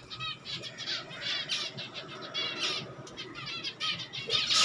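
Finches chirping: bursts of quick, high-pitched chirps that come again about once a second.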